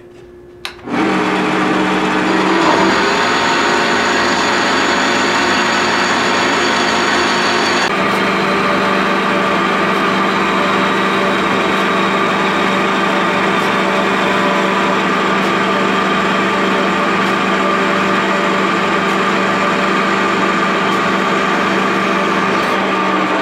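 Benchtop band saw starting up about a second in and running steadily as its blade cuts aluminium bar stock; the tone changes about eight seconds in, then it runs on evenly.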